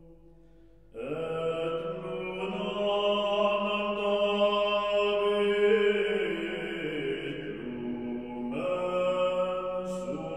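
Background music of slow, sustained chant-like tones. After a brief lull a new phrase comes in about a second in, the pitch steps down a little past the middle, and another phrase begins near the end.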